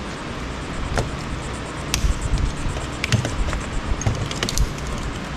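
Scattered clicks and clinks of hand tools on metal and plastic parts during the dismantling of electronic equipment, over a steady low background rumble.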